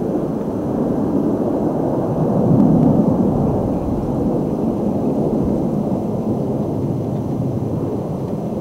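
Twin-engine jet airliner climbing out after takeoff: a low, rumbling jet-engine noise that swells about three seconds in and then slowly fades as the aircraft draws away.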